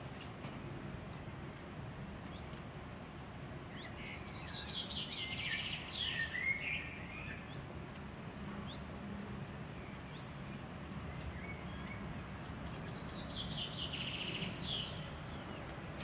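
A small songbird singing two short phrases, about eight seconds apart, each a fast trill of high notes that falls in pitch and ends in a brief flourish, over steady low background noise.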